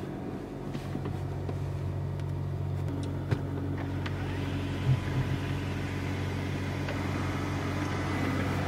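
Mercedes-Benz car engine idling steadily just after a push-button start, heard from inside the cabin, with a couple of light clicks.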